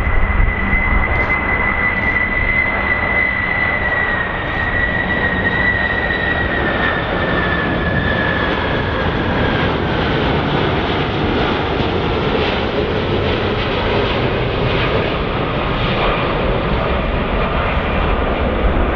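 Boeing 747-200 (VC-25A) on landing approach with gear down: its four CF6 turbofans make a steady jet roar over a high engine whine that slowly falls in pitch over the first ten seconds.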